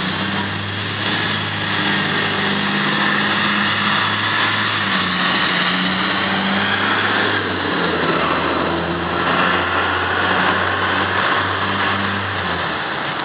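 Fire truck's engine running nearby with a steady low drone, which drops away shortly before the end.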